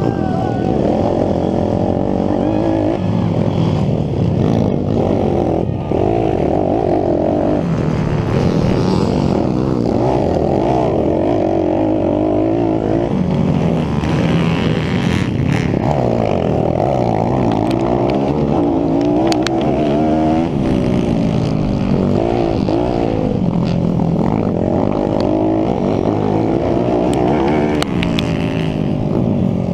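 YCF SP3 pit bike's single-cylinder four-stroke engine racing at close range, its pitch climbing and dropping again and again as the throttle is opened and closed and the gears change.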